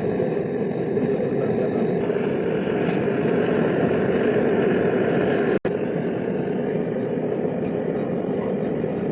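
Gas soldering torch flame burning with a steady rushing noise, cutting out for an instant about five and a half seconds in.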